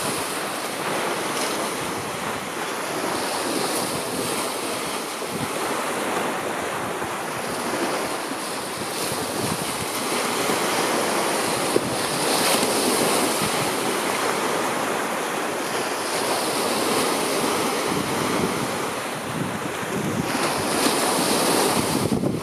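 Sea waves washing on a beach, mixed with wind buffeting the microphone; a steady rushing noise that swells and eases every few seconds.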